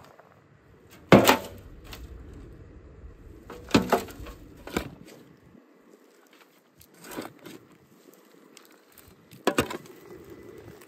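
Shovel digging soil and tipping it into a metal wheelbarrow: five sharp thuds with a rattle of scattering dirt, spaced a second or two apart, the first about a second in and the loudest.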